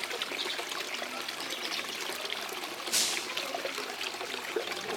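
Water of a small home waterfall trickling and splashing steadily, with a brief louder hiss about three seconds in.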